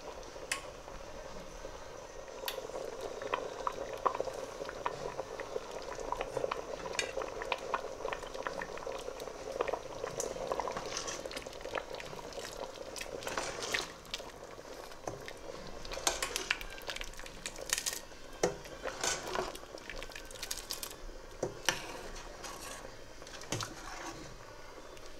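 A pot of brown lentils simmering with a steady bubbling. A metal ladle stirs through it, clinking and scraping against the stainless-steel pot, with the clinks coming thicker after the first few seconds.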